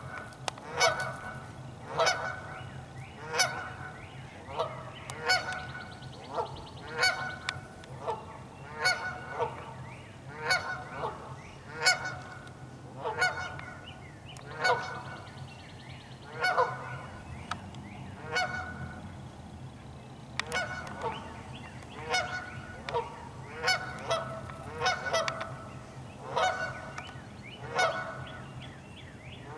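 Canada geese honking over and over, a loud call every second or so with some calls doubled, under a faint steady low hum.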